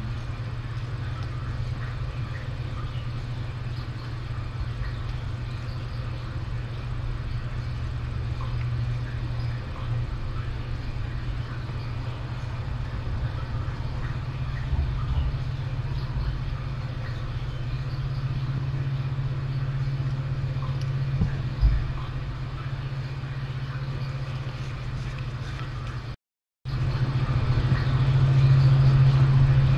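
Cat purring: a steady low rumble, with a brief break near the end, after which it is louder.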